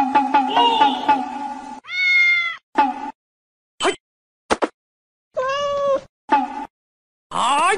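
Domestic cat meowing: three drawn-out meows, the last one rising in pitch, with several short chirp-like calls in between. A steady droning tone runs through the first couple of seconds.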